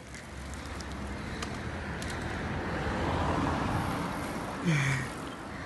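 Road traffic noise on a town street: a broad rushing noise with a low rumble that swells towards the middle and eases off, as a car passing by would. About three-quarters of the way through, a short call from a voice with falling pitch.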